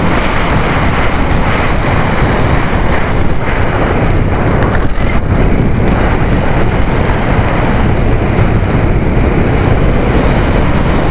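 Loud, steady wind rushing and buffeting over the onboard camera microphone of a radio-controlled AXN model plane in flight.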